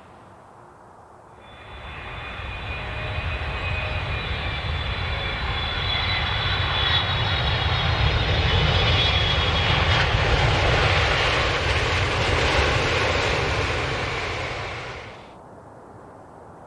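Airplane engine noise that builds up about a second and a half in and runs loud through the middle, with high whining tones that drift slightly down in pitch. It drops away sharply near the end, leaving a faint hiss.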